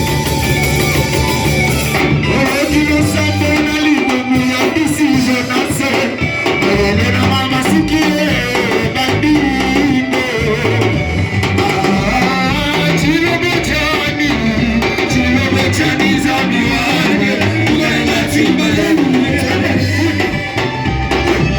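Church worship music: voices singing over a band with drum kit and bass, playing a steady beat.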